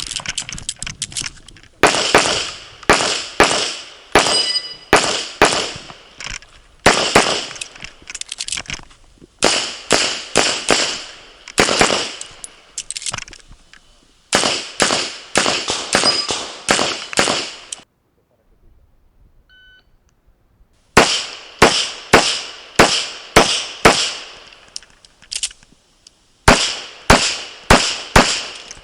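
Rapid pistol fire from an IPSC Classic division handgun: shots come in quick pairs and short strings with brief breaks between them, and one pause of about three seconds past the middle.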